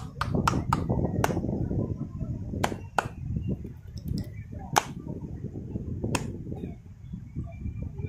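Flat hands slapping an oiled bare back in a percussive massage: a few quick slaps in the first second or so, then single slaps every second or two, over a steady low rumble.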